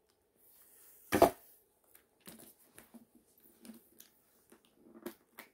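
A sharp click about a second in as the leather strap's metal clip is hooked onto the ring of a polycarbonate cross-body clutch bag, followed by light clicks and rustling as the bag is handled.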